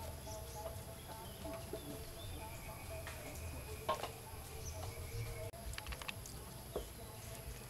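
A kitchen knife slicing small green limes on a wooden chopping board, with a few sharp taps of the blade on the wood, the clearest about four seconds in. Birds and chickens call faintly behind it.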